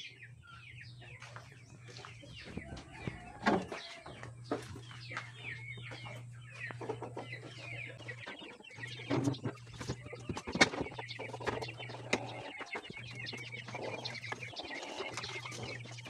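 Chickens clucking and chirping in short, scattered calls. A low steady hum cuts in and out, with a few sharp clicks.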